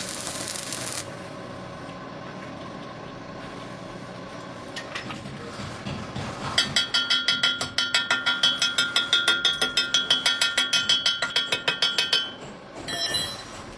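Welding arc crackling, cutting off about a second in. Then a quick, even run of ringing metal strikes, about four or five a second for some five seconds: a hammer on steel, typical of a chipping hammer knocking slag off a fresh weld bead.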